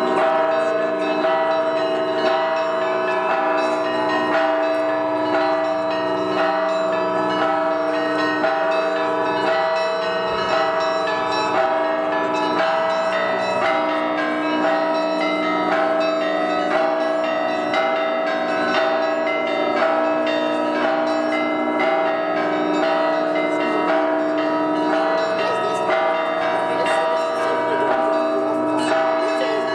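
Russian Orthodox monastery church bells rung together in one continuous peal: quick, repeated strikes over a bed of steady, overlapping ringing tones.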